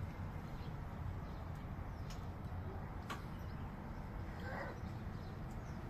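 Faint outdoor background: a low steady rumble with a few light clicks and one short faint call about four and a half seconds in.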